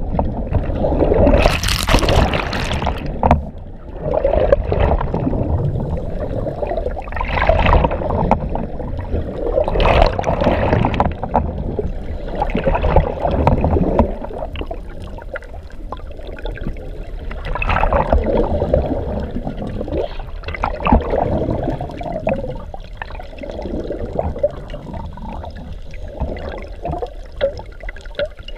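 Rough seawater sloshing and gurgling, heard from just below the churning surface, in irregular surges every couple of seconds with sharper splashes about 2 and 10 seconds in.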